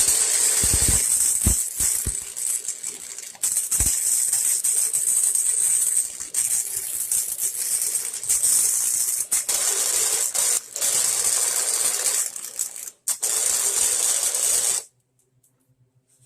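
Harbor Freight wire-feed welder arc crackling and sizzling as a bead is laid on the steel snowblower wheel. It runs in several stretches with brief pauses and a few low thumps in the first few seconds, and stops about a second and a half before the end.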